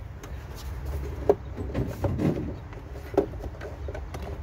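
Hard plastic air-intake duct of a BMW E90 being handled: rubbing and knocking, with two sharp clicks about a second in and about three seconds in, over a steady low rumble.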